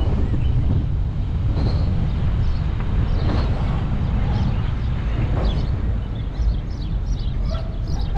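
A truck driving at road speed: a steady low rumble of engine and tyres on the road, with wind noise.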